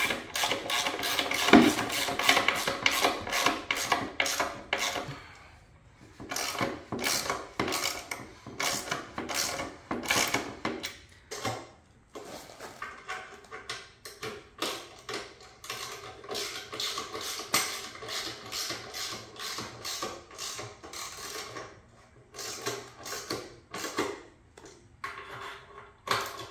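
Runs of rapid mechanical clicking and rattling, like a ratchet being worked, with short pauses about five and eleven seconds in.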